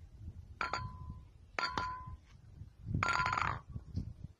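Hammer tapping a clear glass light bulb on concrete, three sharp taps that each give a short clear ring, with a fainter knock near the end. The bulb stays whole.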